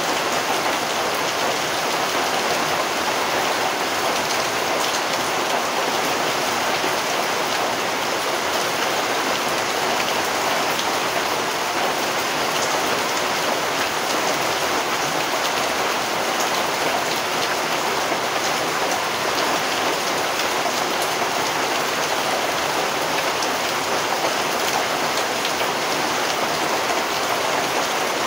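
Rain falling steadily: a dense, even hiss of drops that holds at the same level throughout.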